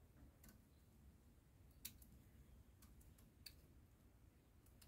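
Faint, irregular snips of small thread scissors cutting mosquito netting, about half a dozen short clicks against near silence.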